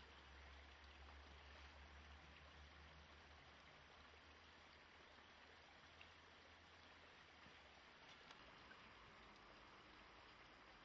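Near silence: a faint steady hiss with a low hum that fades away partway through, and a few faint ticks.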